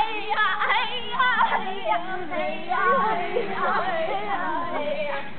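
A group of children and a woman singing a song together, several voices overlapping.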